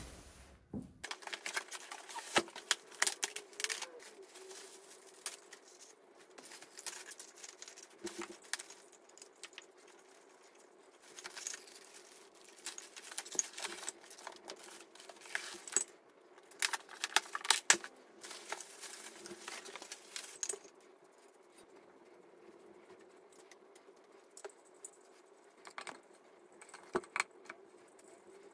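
Floor lamp parts and packaging being handled: metal pieces clinking and rattling, plastic bags crinkling and foam packing rubbing, in irregular bursts that thin out in the last third, over a steady low hum.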